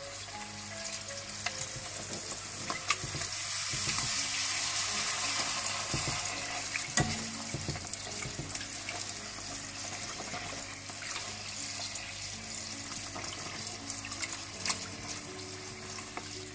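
Golgappa puris deep-frying in hot oil with a steady sizzle that grows louder a few seconds in. Occasional light clicks come from a metal slotted spoon working in the pot.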